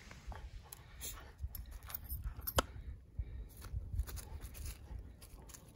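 A Bedlington whippet chewing and tearing at a stick on the forest floor: scattered cracks and snaps of wood, the sharpest about two and a half seconds in, among rustling of dry leaves.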